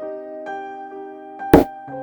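Gentle background piano music with sustained chords, broken by one sharp knock about one and a half seconds in.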